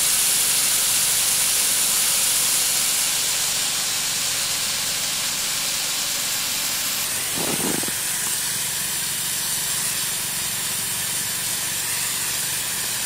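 Backyard snowmaking gun hissing steadily as it sprays its plume of fine mist; the hiss softens a little after a few seconds. A brief dull knock sounds about halfway through.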